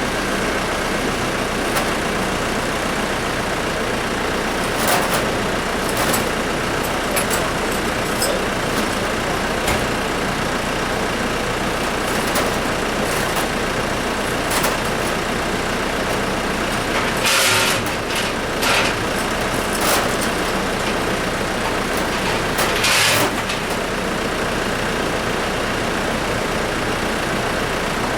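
An engine running steadily, with scattered metal clicks and knocks and two short, louder rushing noises over the top.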